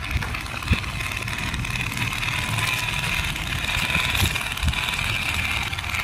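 Plastic RC toy dump truck's small electric motor and gearbox whining steadily as it drives over dirt and stones, with a few short knocks.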